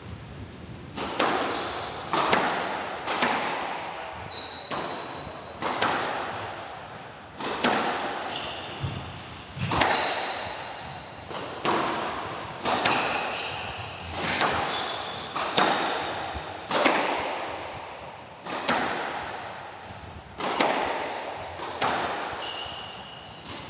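Squash rally: the ball cracks off rackets and walls about once a second, each hit echoing around the court, with short high squeaks of shoes on the wooden floor in between.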